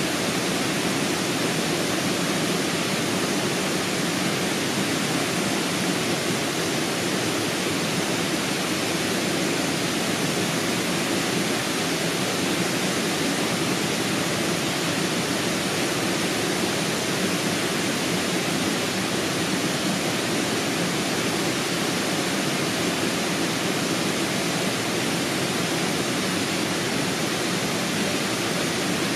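Steady rushing noise of flowing water, even and unbroken, with no other events.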